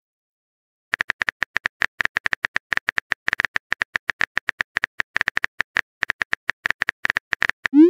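Phone keyboard typing sound effect: rapid, irregular clicks starting about a second in, as a text message is typed. A quick rising swoop near the end marks the message being sent.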